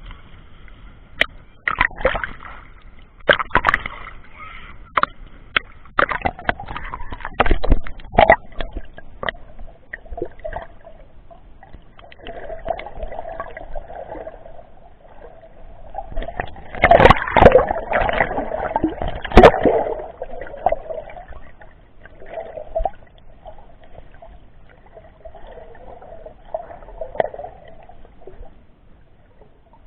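Sea water sloshing and splashing around a camera sealed in a waterproof case, heard muffled through the case, with many sharp clicks and knocks. The loudest splashing and knocks come about two-thirds of the way through.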